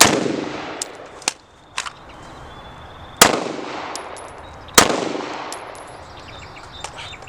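Three loud gunshots, one at the start and two more about three and five seconds in, each trailing off in a long echo. A few fainter sharp cracks come about a second or two in.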